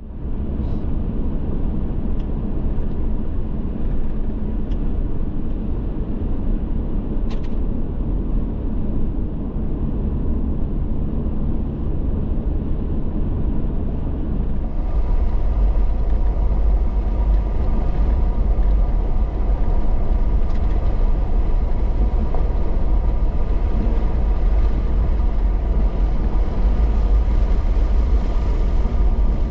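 Car driving: steady engine and road rumble. The sound changes about halfway through, becoming slightly louder and brighter.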